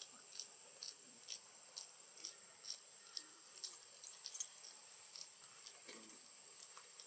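Faint insect chirping: a steady high whine with short, sharp high chirps repeating about twice a second, one louder cluster a little past the middle.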